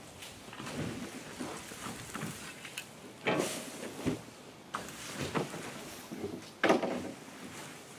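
Cut arborvitae branches being heaved by hand into a wooden box on a trailer: the twigs and foliage rustle, with a few sudden knocks as branches strike the box. The loudest knock comes near seven seconds in, another about three seconds in.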